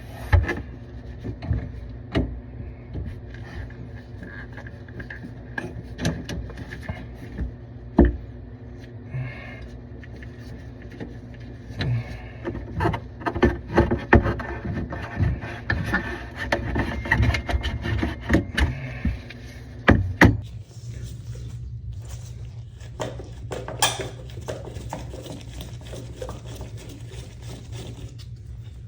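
Irregular clicks, knocks and scraping of hand tools and metal fittings being handled during plumbing work, over a steady low hum. The sharpest knocks come about eight seconds in and again about twenty seconds in, and the handling thins out after that.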